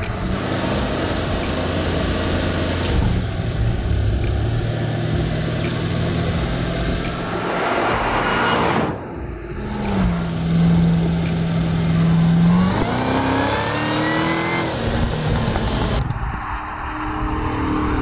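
2022 Cadillac CT5-V Blackwing's supercharged 6.2-litre V8 exhaust, first growing louder as the car approaches and goes by. Then a steady engine note that rises in pitch for about two seconds as the car accelerates.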